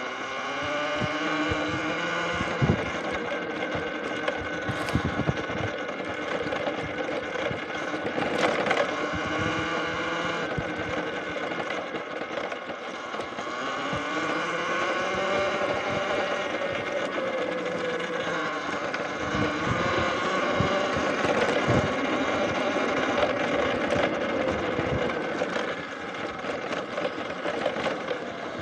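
Talaria electric dirt bike's motor and drivetrain whining while riding, the pitch slowly rising and falling with speed, with a few sharp knocks along the way.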